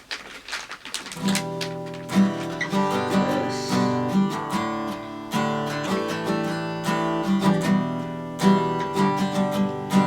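Strummed acoustic guitar music begins about a second in, with chords struck in a regular rhythm, after a few short clicks.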